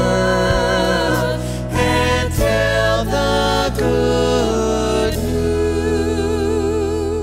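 The closing phrase of a sung responsorial psalm: vocalists singing with vibrato over piano and bass, moving through several held chords. They settle about five seconds in on a long final chord.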